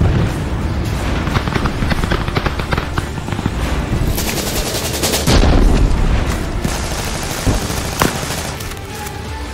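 Automatic gunfire from rifles: rapid runs of shots, many in quick succession. The shots are densest and loudest around the middle, with a sharp single shot near the end.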